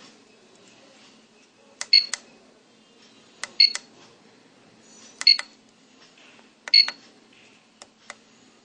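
Short high electronic beeps, each with a sharp click, four times about a second and a half apart, then two faint clicks near the end, from a homemade PIC16F877A and PCF8563 alarm clock circuit board.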